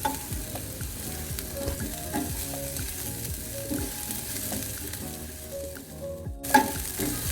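Sliced white spring-onion stalks sizzling in a little hot oil in a pan as they sauté. The sizzle cuts out for a moment about six seconds in, then resumes.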